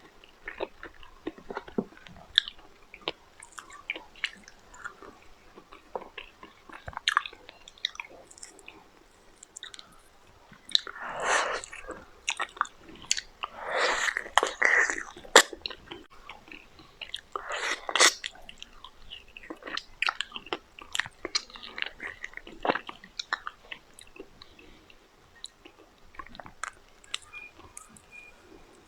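Close-up sounds of a person biting and chewing meat, with many sharp wet clicks and crunches. There are louder, longer stretches of chewing about 11, 14 and 18 seconds in.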